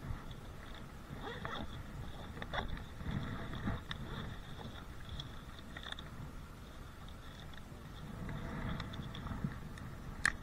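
Faint rustling and handling noise with a few light knocks and clicks, over a faint steady high tone.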